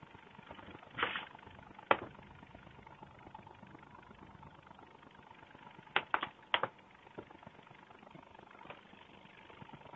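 Pencil marking on paper over card: a short scratch about a second in, then a few sharp taps, three of them in quick succession past the middle.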